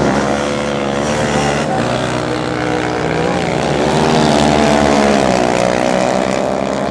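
Racing quad ATV engines running hard on a dirt track, their pitch rising and falling as the riders go on and off the throttle. The loudest pass comes about four to five seconds in.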